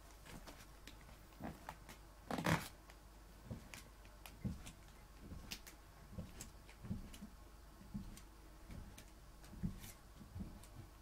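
Pot of pasta water heating on the hob before the boil, giving faint, irregular low pops as bubbles form and collapse on the hot pot base, with one louder knock about two and a half seconds in.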